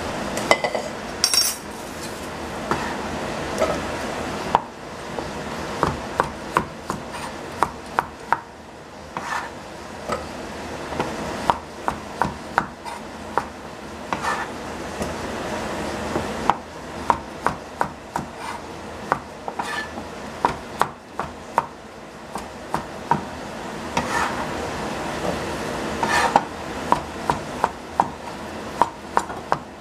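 Chinese cleaver chopping zucchini on a plastic cutting board: runs of quick knocks, several a second, broken by short pauses. A metal clank about a second in as a steel pot is moved.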